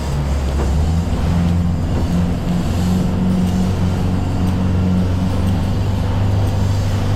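Boat engine running. Its note rises about a second in as the boat speeds up, then holds steady.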